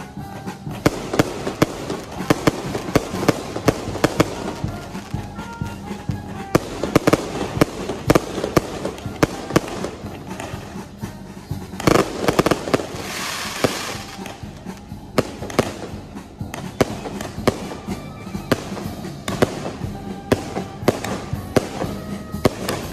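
Aerial fireworks going off in rapid succession, a dense run of sharp bangs and cracks. About twelve seconds in comes a louder stretch of crackling hiss. Music plays underneath.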